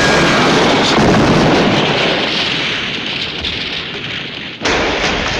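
Aftermath of an explosion in a ship's laundry room: a loud, noisy din that slowly fades. About four and a half seconds in, a sudden fresh burst gives way to a steady rushing noise, the busted steam line the crew blames.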